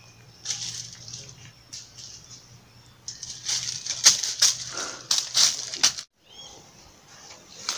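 Footsteps crunching and rustling through a thick layer of dry fallen mango leaves, in irregular crackling bursts that grow louder in the second half and stop abruptly about six seconds in.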